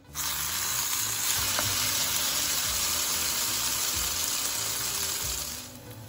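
Hot butter and oil sizzling in a non-stick frying pan as an egg-and-milk-soaked slice of bread fries. The steady, loud hiss starts suddenly and falls away near the end.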